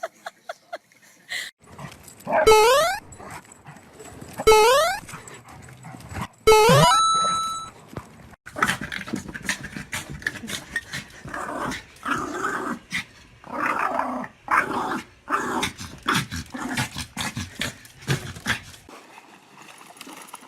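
Dogs barking and growling. Three loud, short calls rise in pitch, about two seconds apart. A long stretch of grumbling growls follows and fades out near the end.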